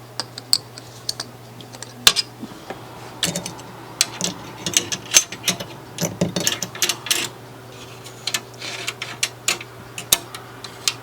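Irregular light clicks, ticks and scrapes of a screwdriver and small metal parts as screws on a record player's mechanism are tightened down.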